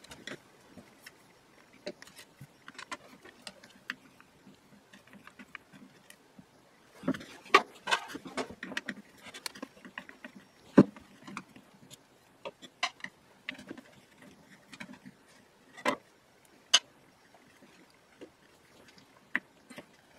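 Scattered small clicks and knocks as the plastic housing and metal gearbox of a Harbor Freight close quarters drill are handled and worked apart by hand. There is a short cluster of handling noise about seven to nine seconds in, and single sharp clicks after it.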